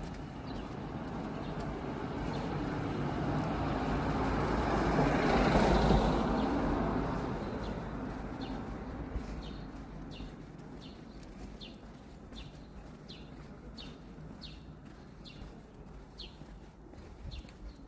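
A vehicle passes by, its noise swelling to a peak about six seconds in and then fading away. After it, a small bird chirps repeatedly with short, quick calls.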